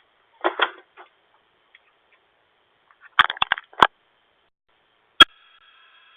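Light clicks and taps, a quick run of sharp clicks about three seconds in, then one very sharp click just after five seconds, followed at once by a steady electronic chime of several pitches held together: a doorbell being pressed and starting to chime.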